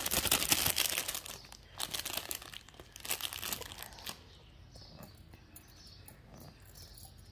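Crinkling of a shiny plastic gift packet as it is opened and handled to take out bangles. It is loudest over the first second or so, with a few more crinkles up to about three and a half seconds in, then only faint handling sounds.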